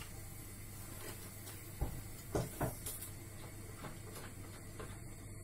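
A few light knocks and clatters about two seconds in, three close together, then a couple of softer ticks, as the plastic cooking-oil bottle is set down and handled after pouring. A steady low hum runs underneath.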